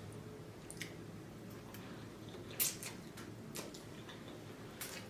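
Close-up eating sounds from a mouthful of seafood linguine: a few scattered soft, wet clicks of chewing, the sharpest about two and a half seconds in.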